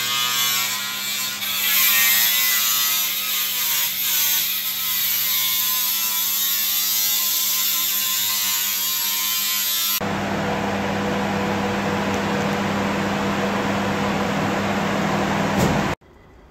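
Electric power tool cutting through the container's inner wall layer, its motor buzz wavering in pitch. About ten seconds in the sound changes abruptly to a rougher, noisier cut, which stops suddenly near the end.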